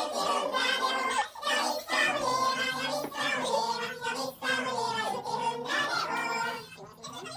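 Music: a sung song with a steady, repeating bass line joining about two seconds in.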